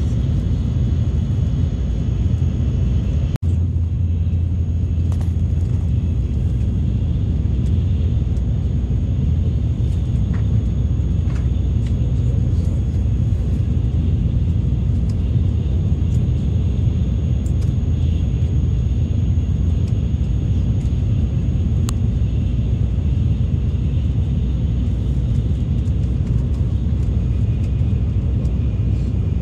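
Shinkansen bullet train running at speed, heard inside the passenger car as a steady low rumble that briefly cuts out about three seconds in.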